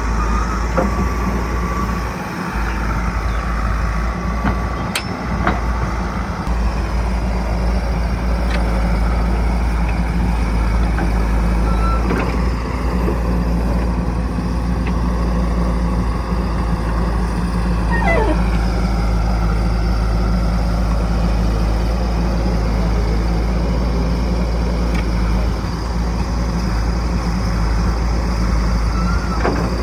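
Heavy diesel engine of earthmoving or farm machinery running steadily, with a few sharp clanks and, about eighteen seconds in, a whining tone that falls in pitch.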